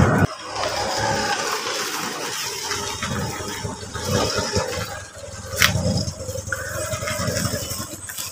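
Auto-rickshaw running at low speed as it turns on a dirt lane, its small engine pulsing unevenly under body rattle. There is a single sharp click about five and a half seconds in.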